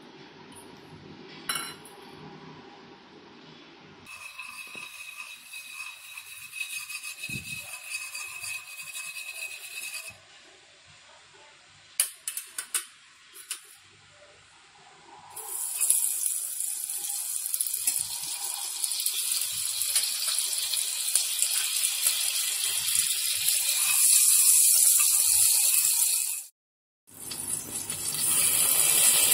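Sugar melting and caramelizing in a stainless steel pot: a crackly hiss of bubbling that grows louder and sharper partway through, with a few sharp clicks around the middle. Near the end it breaks off briefly, then comes back as loud sizzling as liquid is poured into the hot caramel.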